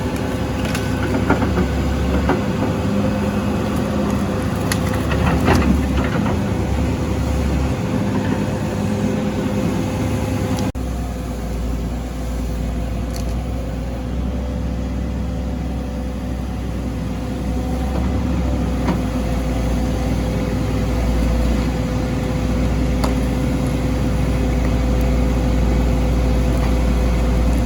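Diesel engine of a John Deere 790D excavator running steadily while it works, with a few short knocks. The engine note changes abruptly about eleven seconds in.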